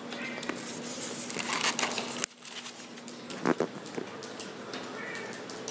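Handling noise from an airsoft pistol and its foam packaging: rustling and scraping that stops abruptly about two seconds in, then a few short sharp clicks.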